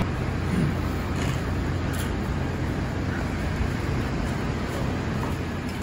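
Steady low background rumble of ambient traffic noise, with a few faint clicks.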